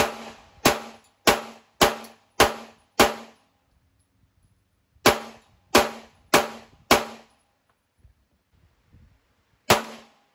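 A CZ 75B compact 9mm pistol firing: six quick shots about half a second apart, then after a pause four more, then a single shot near the end. Each shot has a short metallic ringing tail.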